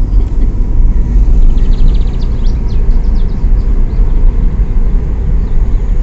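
Car driving along a paved road, heard from inside the cabin: a steady, loud low rumble of engine and road noise.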